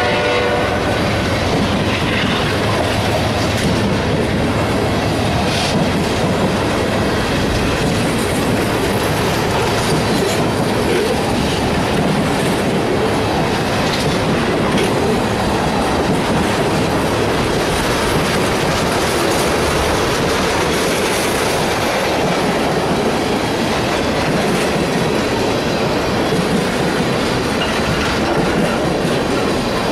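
Freight train tank cars rolling past at close range, their wheels clattering steadily over the rails. A locomotive horn's last note fades out in the first second.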